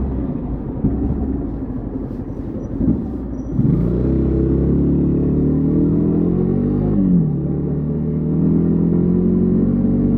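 Yamaha XTZ 150 Crosser S's single-cylinder engine under way: a rough low rumble at first, then a bit over a third of the way in it pulls with slowly rising revs. About seven seconds in the revs fall, then hold steady.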